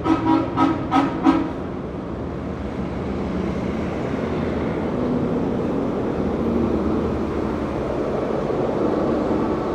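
A vehicle horn gives four short, quick honks in the first second and a half. Then comes the steady low rumble of heavy street traffic.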